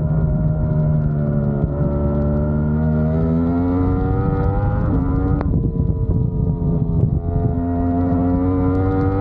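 Yamaha R1 racing motorcycle's inline-four engine at race pace, with wind rush over the bike. Its pitch steps and slides as the bike brakes and shifts down for a corner in the first few seconds, then climbs steadily as it accelerates out.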